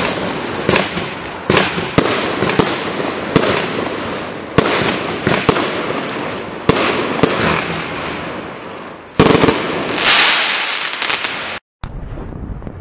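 Magictime P7619 'Thorn' 49-shot, 25 mm firework battery firing its shots one after another, a sharp bang every half second to a second over a continuous hiss of burning effects. About nine seconds in comes a louder, denser burst of shots. It then cuts off suddenly and leaves a brief fading tail.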